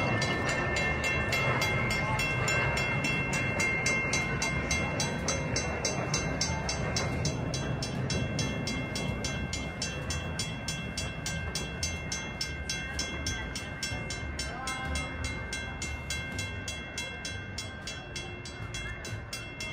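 Small park-railway train running off along the track with a low rumble, while a bell rings in rapid, evenly spaced strokes; the sound slowly fades.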